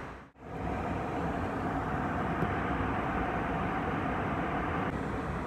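Steady cabin noise of an airliner in flight: a dense rush of airflow and engine sound with a faint steady hum in it. It drops out for a moment just after the start, then carries on evenly.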